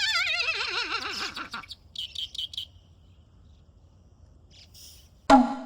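Cartoon-style sound effects: a wobbling whistle sliding down in pitch, then four quick high chirps, and a single struck chime-like note near the end.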